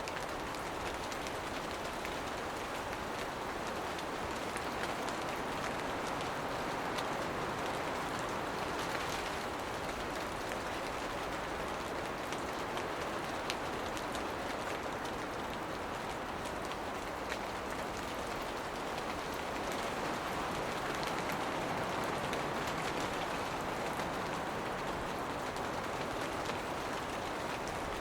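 Steady rain shower, an even hiss with individual drops ticking through it.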